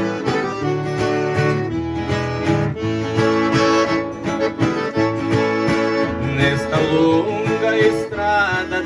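Instrumental introduction to a sertanejo caipira song played live on accordion with plucked guitars, a lively steady rhythm under the melody.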